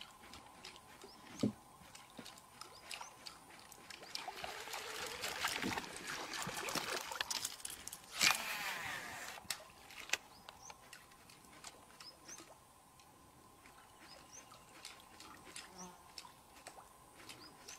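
Faint water splashing and trickling as a lure is worked across the surface of swamp water, with scattered small clicks. About eight seconds in comes a brief louder swish of a cast with a baitcasting rod and reel.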